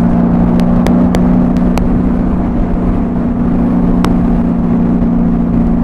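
Honda Valkyrie's flat-six engine running through Cobra 6-into-6 exhaust pipes at a steady cruise, its note holding one pitch, with wind rushing over the helmet-mounted microphone.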